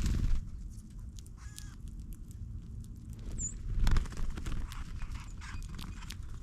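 Small birds feeding on scattered seed close to the microphone: irregular small clicks and taps of pecking over a low steady rumble, one short high chip call about halfway in, and two brief louder low thumps, one at the start and one just before the middle.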